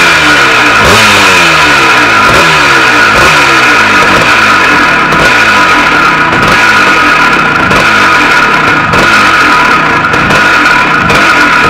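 A 360cc Greeves two-stroke single-cylinder dirt bike engine running just after being kick-started. It is revved in repeated blips, the revs falling away after each one.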